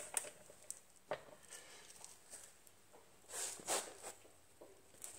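Faint scattered clicks and scuffs of a torque wrench being worked on a front axle nut, with a short rustle about three and a half seconds in.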